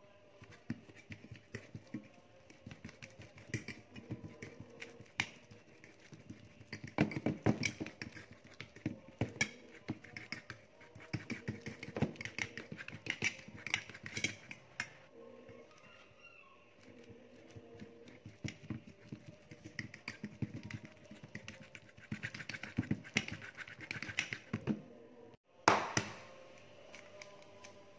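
Metal fork mashing banana in a stainless steel bowl: rapid, irregular clinks and scrapes of the fork tines against the steel, coming in bursts. One louder knock near the end.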